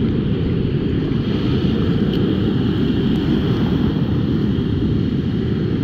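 Wind buffeting the camera microphone over breaking surf: a steady, low noise.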